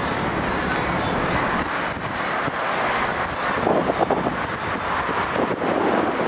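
Wind buffeting a camcorder's built-in microphone: a steady rush, with stronger fluttering gusts about halfway through and again near the end.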